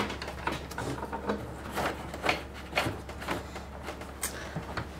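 Irregular rustles, scrapes and light knocks of hands feeding electrical wire through the wooden wall studs, at scattered moments.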